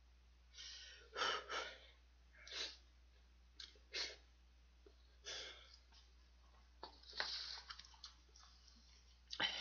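A person slurping extra-spicy stir-fried ramen noodles off chopsticks: a string of short, airy slurps and breaths with pauses between them.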